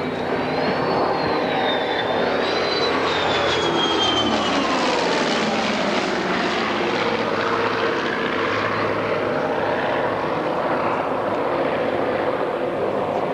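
Grumman F-14 Tomcat jet and Grumman F-7F Tigercat twin piston-engine fighter flying past together in close formation: a loud, steady engine noise with a whine that falls in pitch during the first few seconds as they pass.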